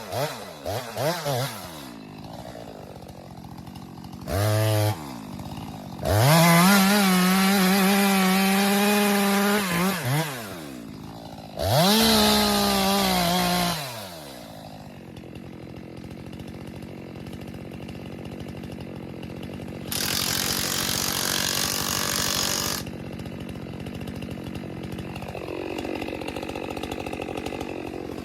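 STIHL two-stroke chainsaw being blipped rapidly, then held at full throttle twice, for about four seconds and then about two, dropping back to idle in between. Later, a loud rushing noise lasts about three seconds over the idling saw.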